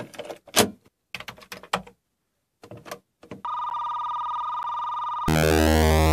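Mechanical clunks and clicks of a Commodore Datasette cassette drive's piano-key buttons being pressed. About three and a half seconds in, a steady electronic beep tone starts. A loud synthesizer chord with rising sweeps takes over near the end.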